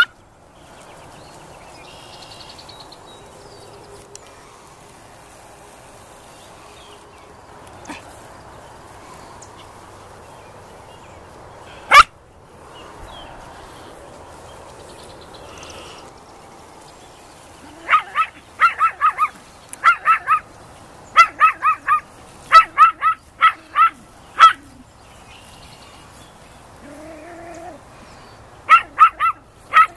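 A small Yorkshire terrier yapping in short, high-pitched barks: single barks at the start and about twelve seconds in, then quick runs of barks from about eighteen to twenty-five seconds in and again near the end.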